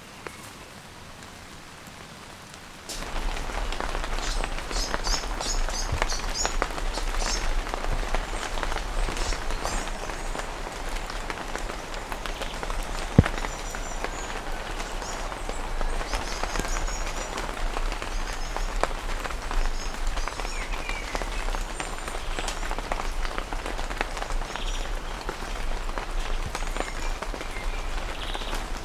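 Rain falling steadily, a dense patter of drops on a surface, starting abruptly about three seconds in after a quieter stretch. A single sharp tap about halfway through.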